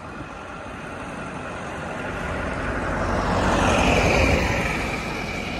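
A road vehicle passing by, its tyre and engine noise building steadily to a peak about four seconds in, then fading.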